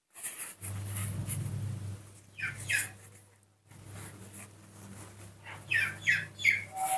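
Short, high-pitched squeaking calls from a small animal, falling in pitch: a pair about two and a half seconds in, then a quick run of four or five near the end. A steady low hum runs underneath.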